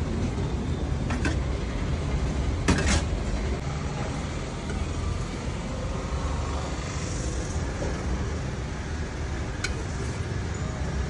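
Food frying on a large flat iron griddle, with a steady low rumble underneath and a few sharp metal clinks from a spatula and a tin container, two in the first three seconds and one near the end.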